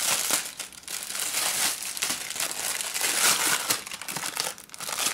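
A plastic postal packet crinkling as it is pulled open by hand, an irregular run of crackles and rustles.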